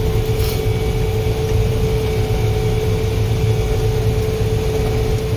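Combine harvester running while harvesting standing rye, heard from inside the cab: a steady low engine drone with a constant whine from the threshing machinery.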